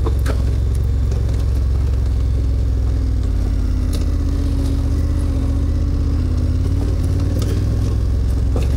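KTM 1290 Super Adventure R's V-twin engine running steadily under way, with a few short sharp clicks over it.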